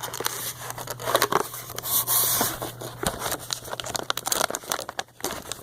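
A snack package being torn open and crinkled by hand: a run of crackling crinkles with a louder rip about two seconds in.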